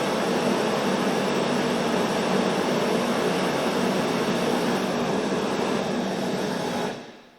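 Twin burners of a homemade gas forge running with a steady rushing noise, then shut off at the dial about seven seconds in, the sound dying away within half a second.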